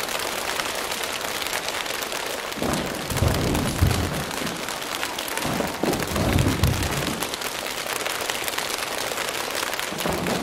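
A choir making a rainstorm with body percussion: a dense steady patter of many hands, with deep stamping rumbles like thunder about three seconds in, about six seconds in, and again at the very end.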